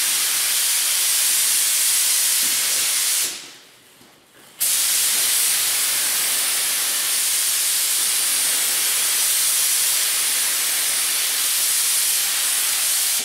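Compressed-air hiss from a DeVilbiss Finish Line gravity-feed spray gun atomizing a first light coat of etching primer. The trigger is released for about a second around three seconds in, then the spraying picks up again and stops abruptly at the very end.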